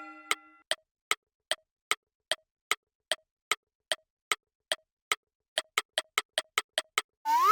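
Clock-like ticking sound effect: short dry ticks about two and a half a second, speeding up to about five a second near the end, as in a countdown. A rising whistle-like glide starts at the very end.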